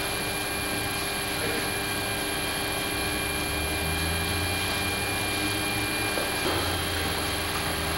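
Steady hiss with a low hum and a few faint steady high tones: the background noise of an early-1980s home video recording. The hum swells a little about four seconds in and again near the end.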